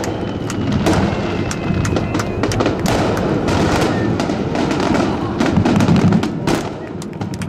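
Barrage of aerial fireworks shells bursting in quick succession, with booms and crackling overlapping many times a second. It eases off near the end.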